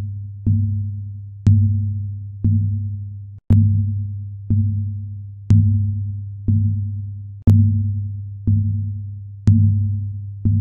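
Electronic bass beat of the soundtrack: a deep low tone struck once a second, each hit opening with a sharp click and fading away before the next.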